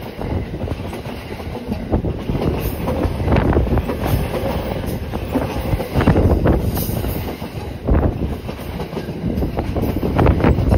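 E217 series electric commuter train passing close by: a steady rumble of wheels on rails with repeated clacks as the wheels cross rail joints.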